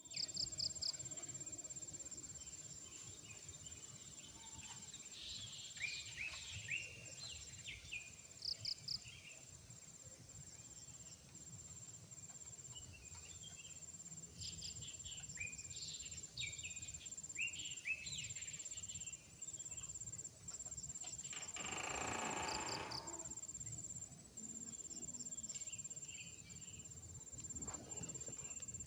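Steady chorus of insects and crickets with a pulsing high-pitched trill, and birds chirping and trilling now and then. About 22 seconds in comes a brief rushing noise lasting about a second and a half, which is the unexplained strange sound at the fishing spot.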